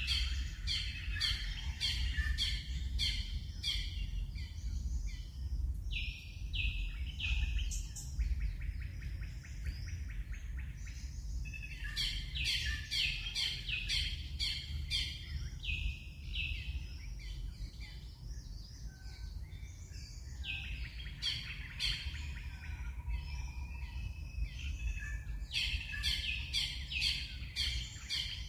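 Birds chirping: runs of short, high, falling notes repeated many times, with a buzzy trill about eight seconds in, over a steady low rumble.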